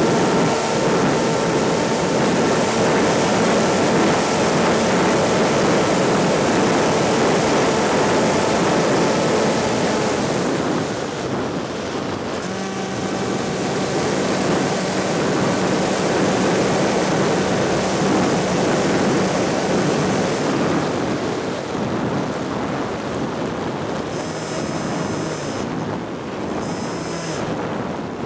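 Airflow rushing over the microphone of a camera carried on a model aircraft in flight. A loud, steady rush with faint steady tones underneath.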